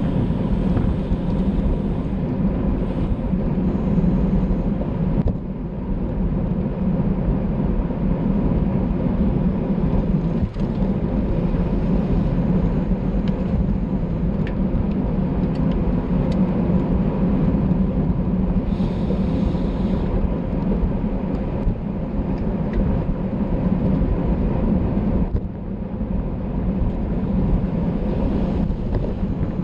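Wind buffeting a microphone at racing speed on a road bike: a steady low rumble that dips briefly twice, with a few faint ticks.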